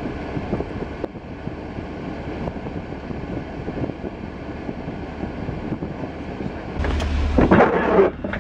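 Chevrolet Silverado pickup idling, heard from inside the cab, under a steady hiss. About seven seconds in, a louder, rougher sound lasts about a second.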